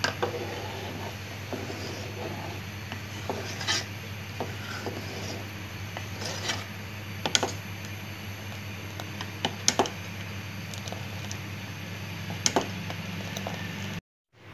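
A plastic spoon stirring milk in a steel pot, scraping and knocking against the pot's side now and then, over a steady low hum. The sound cuts out to silence just before the end.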